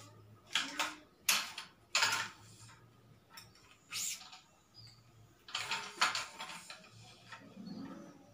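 Li-Ning No. 1 badminton string swishing as it is pulled through the racket frame and across the strings, in several quick pulls of about half a second to a second each. Light clicks and knocks come from handling the stringing machine and its clamps.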